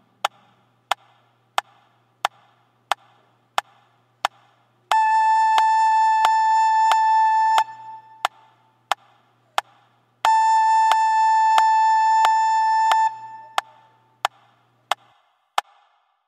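Metronome clicking steadily, about three clicks every two seconds: an eight-click count-in, then the note A held for four beats as a whole note. Four beats of clicks alone follow, then a second four-beat A, as in a beginner recorder exercise on the note A.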